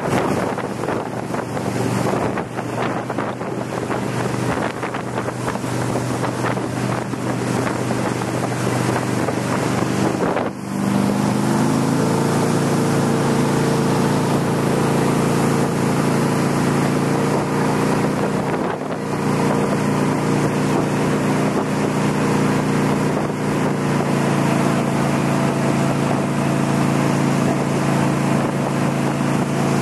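Riverboat motor running steadily under way, with wind buffeting the microphone and water rushing past the hull. About ten seconds in the engine note briefly drops, then climbs as the boat speeds up and holds steady at the higher pitch.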